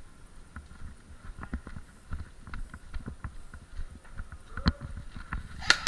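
Irregular footsteps and gear knocking as a player moves, with a sharp crack about four and a half seconds in and a quick run of sharp cracks at the very end.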